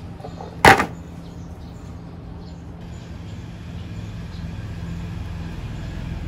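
A plastic basin of calamansi set down on a wooden table: one sharp knock a little under a second in. A steady low hum carries on underneath.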